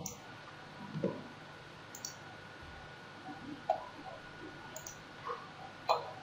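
A few faint computer mouse clicks, spaced a second or more apart.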